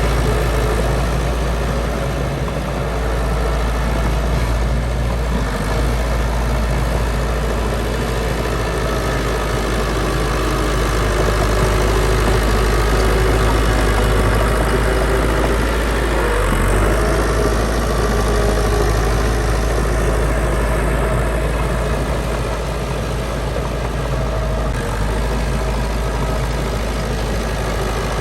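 Diesel engine of heavy earthmoving machinery running steadily, with a deep low rumble and no sudden changes.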